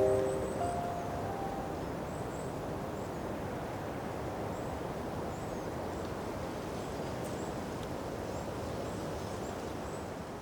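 Steady outdoor nature ambience: an even hiss with faint, scattered high chirps. It opens with the last few hoots of an owl in the first second or so.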